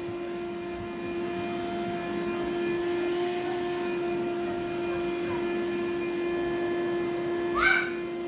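Vacuum cleaner running with a steady hum while its hose is moved over a rug. Near the end a short rising squeal stands out above it.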